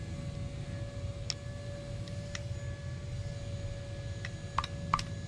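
A few light, sharp metal clicks and taps from hand tools and outboard parts being handled, spaced unevenly, with the two loudest close together near the end. Under them runs a steady low rumble with a faint steady tone.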